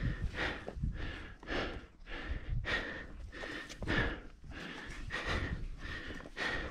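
A climber's heavy, rapid breathing from exertion, with about two breath sounds a second in a steady in-and-out rhythm.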